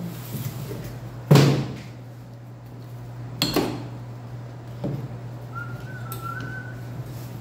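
Three sharp knocks of containers and utensils being picked up and set down on a stainless steel counter, the first the loudest with a short ringing tail, over a steady low hum. A faint wavering whistle comes in about two seconds before the end.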